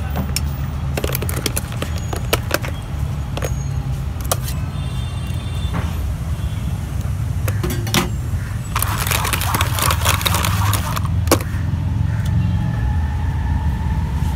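Electric hand mixer running steadily, its twin beaters whisking a milky liquid into froth in an aluminium pot, with irregular clicks and knocks throughout.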